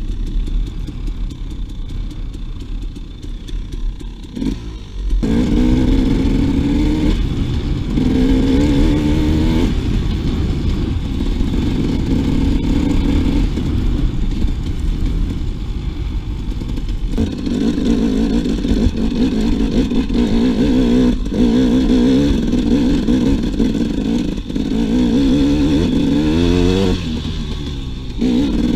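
2008 KTM 300 XC single-cylinder two-stroke dirt bike engine being ridden off-road. It runs quietly for the first few seconds, then the throttle opens about five seconds in and the engine revs up and down repeatedly, climbing again near the end.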